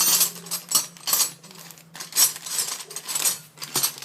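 Steel box-end wrenches clinking and rattling against each other in irregular bursts as one is worked out of the set.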